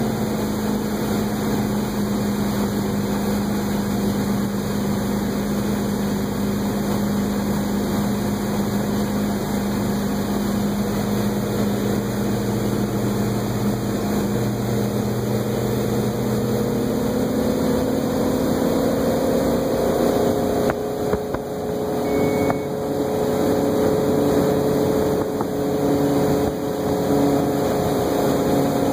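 Malibu wakeboat's inboard engine running steadily at cruise speed, with water and wind noise. Past the middle its pitch rises gradually as the GPS speed control holds about 22 mph under added load.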